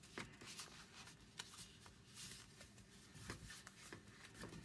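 Faint paper rustling with scattered light taps and scrapes: a small pink cardstock box being handled and turned against a sheet of kraft paper.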